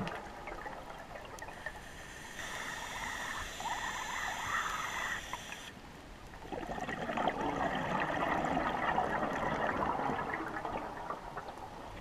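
A scuba diver's own breathing through the regulator, heard underwater: a hissing, slightly whistling inhalation for about three seconds, then a long gurgling rush of exhaled bubbles.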